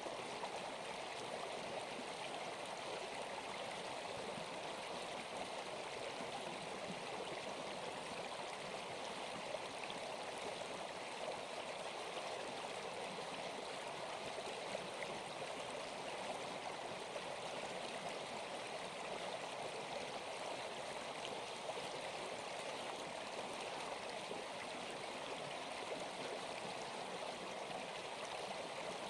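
Steady flowing water, like a running stream, even and unbroken throughout.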